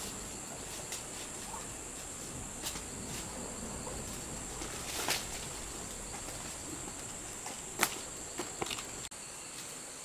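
Steady high-pitched drone of rainforest insects, with scattered sharp snaps and crunches of footsteps on twigs and leaf litter as someone climbs over rocks; the loudest crack comes about eight seconds in.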